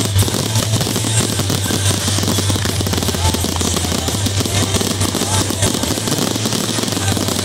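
Barrage of aerial firework shells bursting in rapid succession: a continuous run of bangs and crackle, with no single loud burst standing out.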